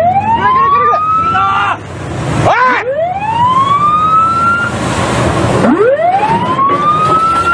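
A ship's siren wailing: each call rises in pitch over about two seconds and cuts off, about every three seconds. It plays over the rush of water and spray at the hull.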